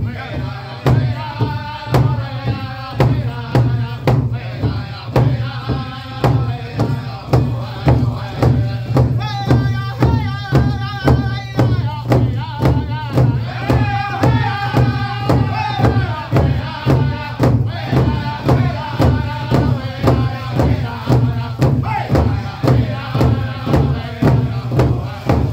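Pow wow drum group singing a crow hop song: several men's voices in unison over a steady, even beat struck on one big drum. The voices climb highest about nine to twelve seconds in.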